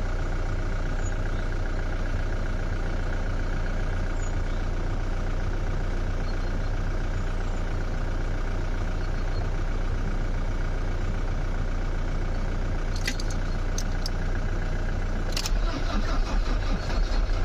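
Car engine being turned over by the starter motor, cranking steadily without catching: a crank-but-no-start condition. A few sharp clicks come near the end.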